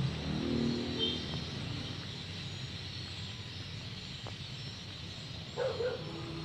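Faint outdoor street ambience: a steady low background hiss with a few brief distant calls, a short high chirp a little after the first second and a louder pitched call about five and a half seconds in.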